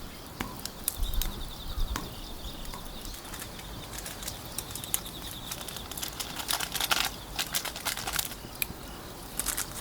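Wood fire crackling, with irregular sharp pops that come thicker about two-thirds of the way in, over a faint steady high hiss.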